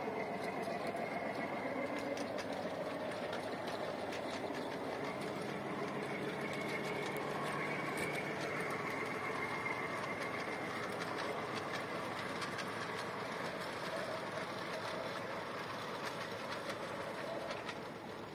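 Ride-on 5-inch gauge miniature train running along its track: a steady rolling noise of the wheels on the rails with frequent clicks over the rail joints, fading near the end as it pulls away.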